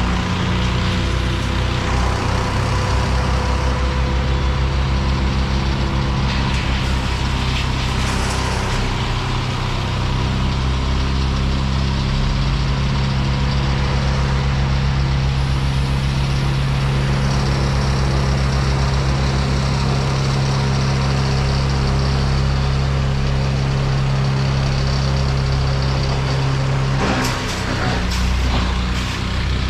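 A heavy engine running steadily at a constant speed. Near the end its note dips briefly and a few sharp knocks are heard.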